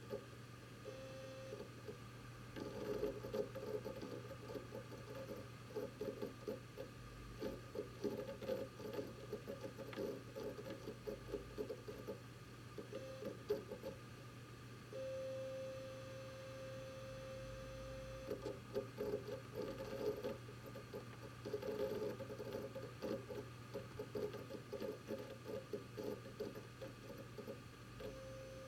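WD Red Pro hard drive in a Synology DS918+ NAS, seeking with a rapid, irregular patter of clicks over a steady hum. Through it comes the drive's 'beeping sound', a steady mid-pitched tone: brief about a second in, again just before the middle and near the end, and held for about three and a half seconds past the middle.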